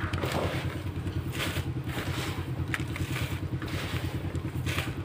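An engine idling with a steady low drone, the loudest sound throughout. Over it, a plastic grow bag and dry potting mix rustle and scrape in short bursts as they are handled, several times.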